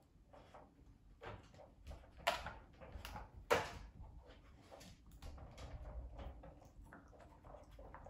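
Plastic puzzle-feeder dog toy pieces clicking and knocking as a husky puppy noses and paws at them, a string of light clatters with two louder clacks, about two and a half and three and a half seconds in.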